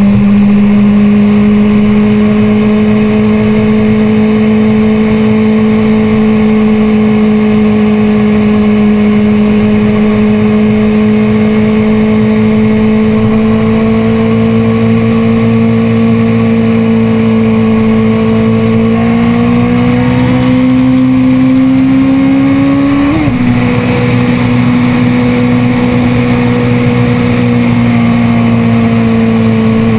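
BMW S1000RR's 999 cc inline-four engine pulling steadily at part throttle, its pitch slowly creeping up. About 23 seconds in the revs climb a little more, then drop sharply as the bike shifts up a gear, from third to fourth. The engine then holds steady and eases off slightly near the end.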